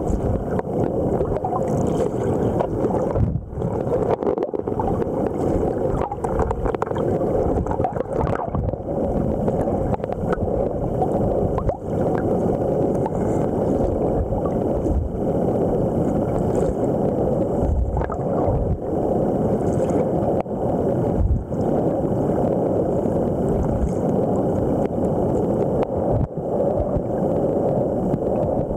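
River current rushing past a camera held underwater, heard as a steady, muffled churning with a few brief dips.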